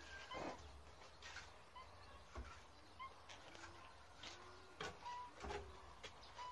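Quiet, scattered scrapes and knocks of wet mortar being scooped by hand from a metal wheelbarrow, with a few faint bird chirps.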